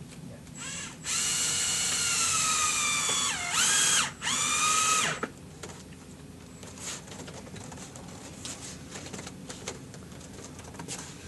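Cordless drill driving a screw to fasten the screen's side track: a brief blip, then a steady motor whine for about two seconds that drops in pitch as the screw seats, followed by two shorter bursts. Light clicks of handling follow.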